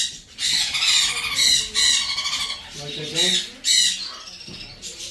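Baby blue-and-gold macaws squawking in a rapid run of harsh, wavering calls, about two a second, fading near the end.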